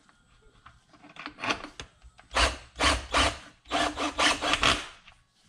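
A Bauer cordless power tool running bolts in, in three short bursts, the first fainter than the other two.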